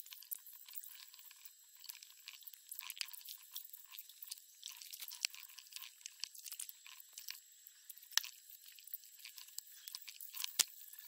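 Crackly scraping and rustling of a kitchen knife and paper towel working a raw fish fillet on a plastic cutting board, with two sharper knocks, about eight seconds in and near the end.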